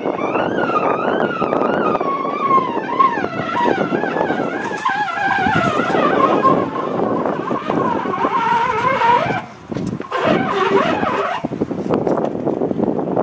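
A high voice wailing in one long, wavering cry that slowly falls in pitch and breaks off about nine seconds in, followed by a shorter cry, over a dense noisy background.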